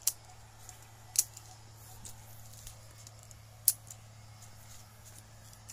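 Hand pruning shears (secateurs) snipping through small durian-tree branches: four sharp snips at uneven intervals, the last right at the end.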